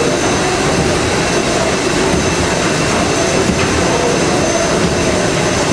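Engine-room noise of a Liberty ship's three-cylinder triple-expansion reciprocating steam engine running under way: a loud, steady mechanical din with a thin high whine over it.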